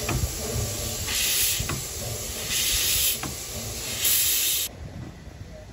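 A Fowler narrow-gauge steam locomotive letting off steam: loud hissing in repeated bursts about every second and a half, cutting off suddenly about four and a half seconds in.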